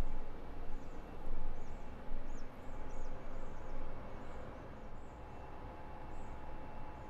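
Street-food market ambience: a steady hum and rumble, with many short, high chirps from small birds. The overall noise eases off about halfway through.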